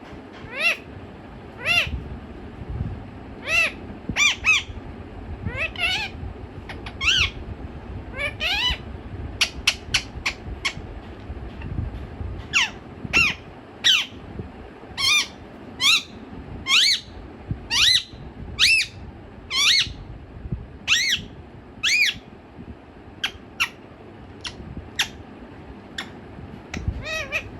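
Pet parakeet giving a long series of short, shrill calls, roughly one a second, each sliding in pitch, with a quicker run of them partway through.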